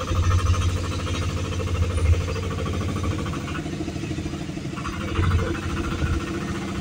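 Engine and road noise heard from inside a moving vehicle's cabin: a steady low rumble with a running engine.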